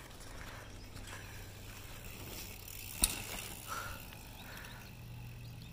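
Mountain bike rolling faintly over grass and dirt through a jump, with one sharp knock about three seconds in.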